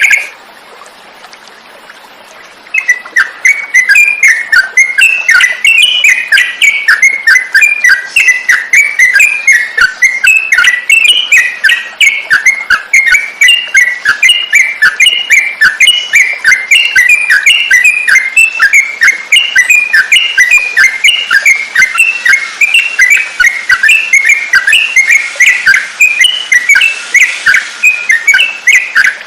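Yellow-vented bulbul (trucukan) singing a fast, unbroken chatter of short chirped notes, several a second, starting about three seconds in after a quiet opening.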